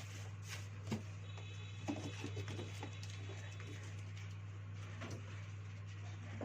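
Steady low electrical hum, with a few light clicks and knocks of small parts being handled on a workbench, a sharp click about a second in and a cluster around two seconds in.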